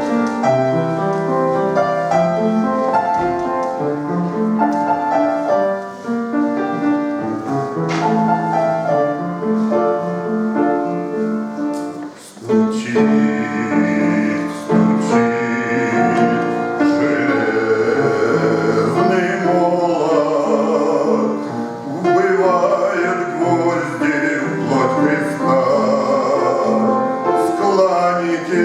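A Christian hymn: a keyboard introduction, then about twelve seconds in a male voice starts singing over the keyboard accompaniment.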